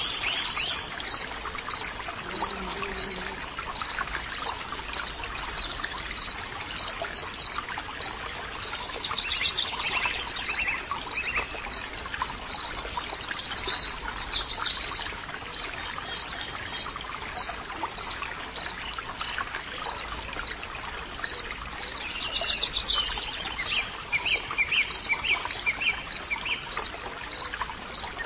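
Running water from a stream, steady and rushing, with wild birds singing: a high short pip repeating about every 0.7 s, and fuller song phrases now and then.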